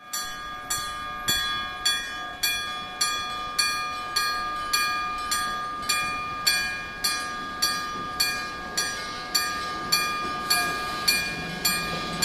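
Electric level-crossing bell (denshō-type warning bell) striking steadily, a little under two strokes a second, each stroke ringing on and fading before the next. It is the crossing's warning that a tram is approaching.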